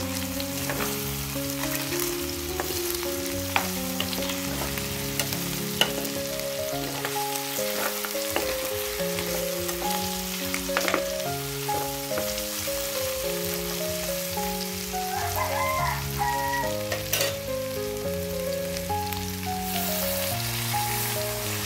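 Chicken, tomato and onion sizzling in a hot metal pan while a metal spatula stirs and scrapes, with sharp clicks of the spatula against the pan. Background music plays throughout. Near the end, water poured into the pan makes a louder hissing sizzle.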